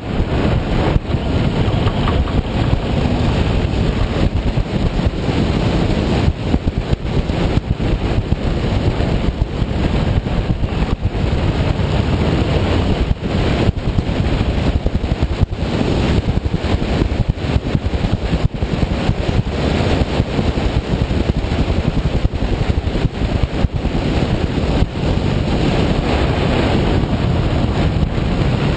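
Steady wind rush buffeting the microphone of a camera on a moving motorcycle, with the running engine and road noise beneath it.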